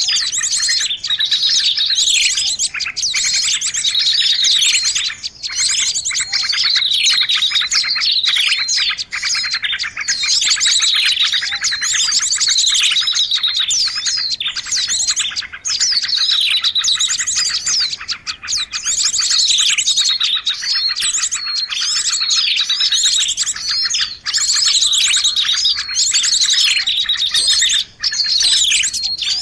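Bird-lure recording: a loud, dense mix of many small songbirds chirping and twittering at once, with fast whistled sweeps and trills. The same run of calls comes round again every four to five seconds, as in a looped lure track made to call in small birds.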